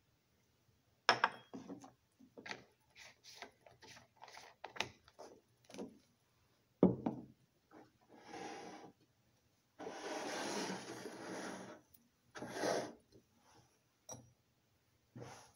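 Lab equipment handled on a benchtop: a string of clicks and knocks as glassware and bottles are set down, then longer scraping as a wooden test tube rack is slid across the bench, the longest scrape lasting nearly two seconds.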